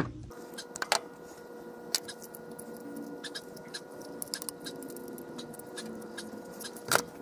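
Scattered small clicks and taps of hand tools and small metal parts being handled and set down on a wooden workbench, over a faint steady hum.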